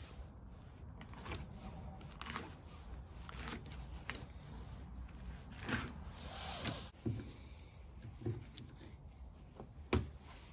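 Fillet knife cutting and scraping through a perch on a wooden cutting board: short scattered strokes, a longer scraping stroke a little past the middle, and a sharp knock near the end.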